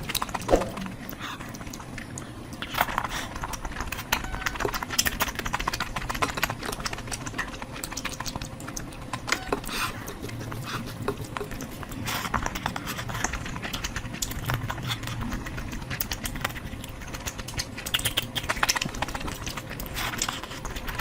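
Close-miked chewing and mouth sounds of a person eating curry: many irregular wet clicks and smacks.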